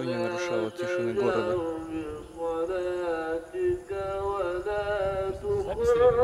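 A man's voice singing a tune without words, in long held notes that slide between pitches, close to the microphone.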